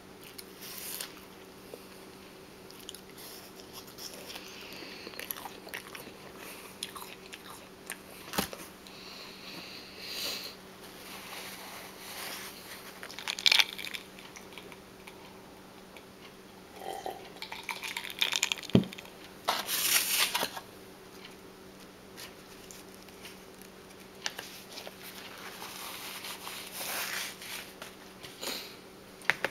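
Close-up biting and chewing of crunchy raw food, irregular crisp crunches with the loudest bites a little past halfway through.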